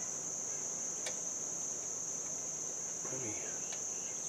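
Steady high-pitched chorus of crickets, with one faint click about a second in.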